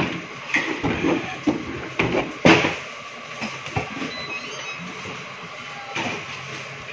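A few knocks and clicks, the loudest about two and a half seconds in, then a steady mechanical whir: the key-card lock and motorised door mechanism of a capsule-hotel pod.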